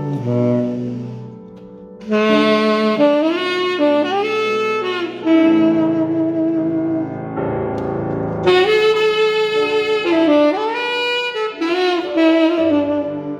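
Saxophone playing a jazz-flavoured melodic line with sliding, bent notes over grand piano accompaniment; the playing drops back briefly about a second in, then comes in strongly again.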